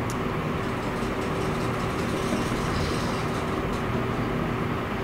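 Steady machine hum with a rushing background noise, unchanging throughout, with a couple of faint light ticks.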